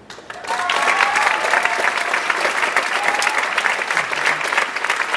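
Audience applauding, breaking out suddenly about half a second in, with a few cheers and whoops over the clapping early on.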